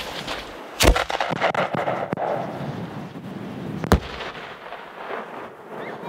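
A 3-inch aerial peony shell fired from a mortar tube. There is a sharp lift bang about a second in, then the shell bursts about three seconds later with a second, slightly softer bang.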